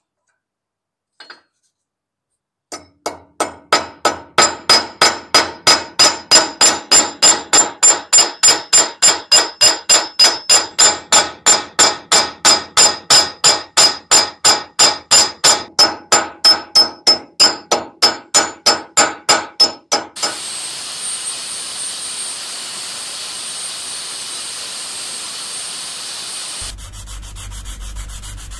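A small hammer striking rapidly and evenly, about three to four blows a second, peening copper rivets into a steel axe head on a steel block. The blows stop about two-thirds of the way through, and a steady rubbing of the steel head against an abrasive follows.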